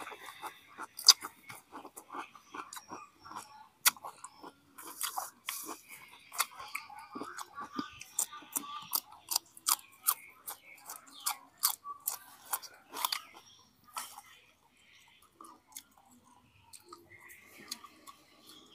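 A man chewing and crunching mouthfuls of crisp lettuce and braised pork intestines, with many irregular wet mouth clicks and crackles.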